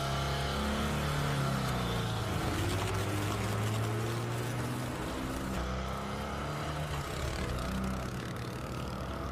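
Car engine running steadily, a vehicle driving off.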